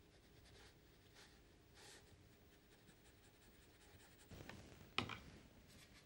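Faint scratching of a fine watercolour brush stroking across paper, then a brief scuffle and one sharp tap near the end as the brush goes to the plastic paint palette.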